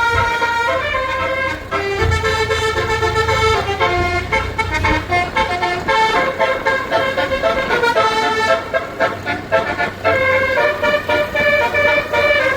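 Basuri multi-tone telolet horn playing a melody, the chorus of a pop song, in a run of sustained honking notes that step up and down in pitch. A low rumble sits beneath it for a few seconds early on.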